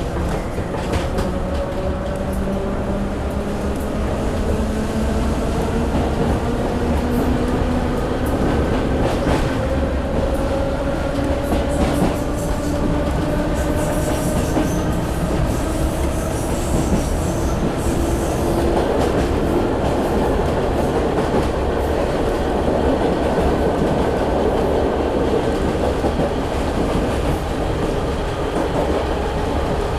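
A train pulling away and gathering speed: a whine that rises slowly in pitch over the rumble of wheels on the rails, with a brief high squeal partway through.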